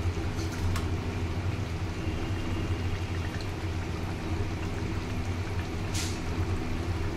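Kadai paneer gravy simmering in a kadai on a gas stove: a steady bubbling hiss over a low steady hum, with a couple of brief sharp crackles, one near the start and one near the end.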